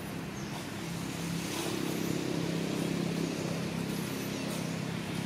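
A steady low motor hum under an even outdoor hiss, with a few faint high chirps.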